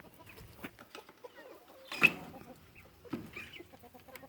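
Chickens clucking at low level among the flock, with one sharper, louder sound about two seconds in.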